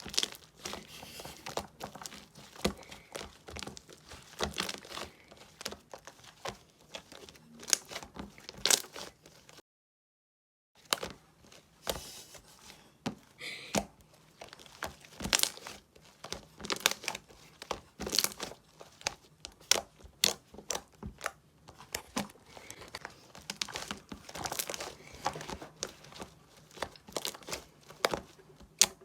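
Slime being squished, stretched and folded by hand, giving irregular crackling clicks and pops. The sound cuts out completely for about a second near the middle.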